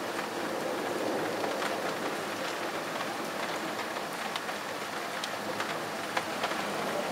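Steady rain falling, with many separate drops striking a hard surface close by as short sharp ticks.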